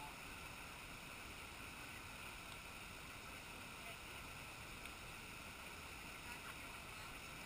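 Faint steady noise with no distinct sounds standing out.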